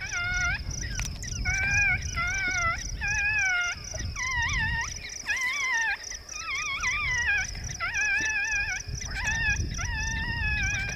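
Coyotes howling and yipping, several voices overlapping in wavering, pitch-bending calls that come in runs with short breaks between them.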